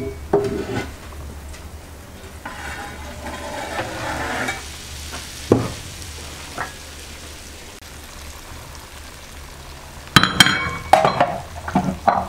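Herring sizzling in a hot non-stick frying pan, with a sharp knock about halfway through and a burst of clattering pan knocks near the end.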